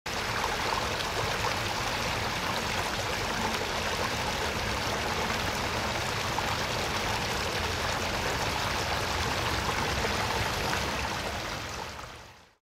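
Steady rushing of flowing water, like a small stream running over rocks, fading out near the end.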